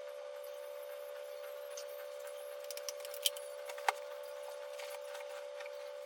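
Scattered light clicks and taps, with two sharper clicks a little past the three- and four-second marks, over a steady hum.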